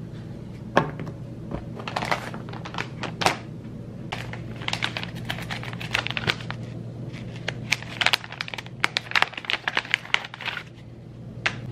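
Clear plastic product bag crinkling and crackling in the hands in irregular bursts, with a couple of sharper knocks in the first few seconds.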